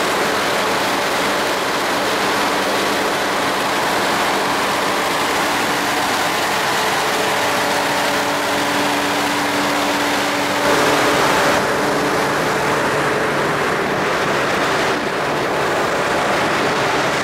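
Aircraft ground support cart running with a steady mechanical drone and hum, its sound shifting about ten seconds in.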